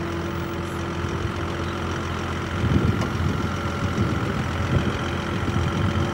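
A Scania tipper truck's diesel engine running at low revs as the truck creeps on the ramps of a lowboy trailer. From about halfway in the engine note grows louder and more uneven as it takes load.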